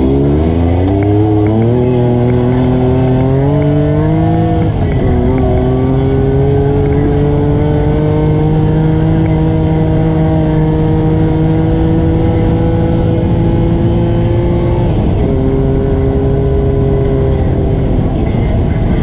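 ATV engine under way. Its revs climb for the first four seconds, drop sharply around five seconds, then hold fairly steady with a slow rise, easing off briefly around fifteen seconds and again near the end.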